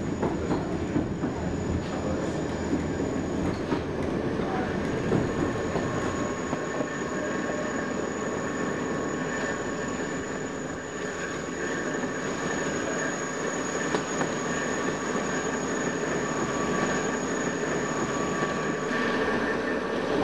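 Narrow-gauge (760 mm) railway coaches rolling through curves, heard from on board: a steady rumble of the running gear with high-pitched wheel squeal ringing over it. The highest squeal tone breaks off briefly about four seconds in and stops about a second before the end.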